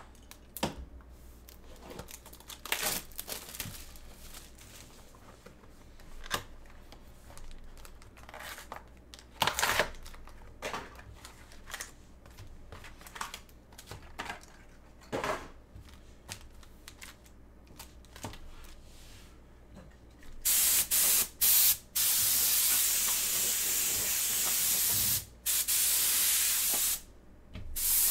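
Sealed trading-card boxes being handled and unwrapped: scattered short rustles and scrapes of plastic wrap and cardboard. About two-thirds of the way through comes a loud, steady hiss of wrapping being torn off, lasting several seconds with a few short breaks.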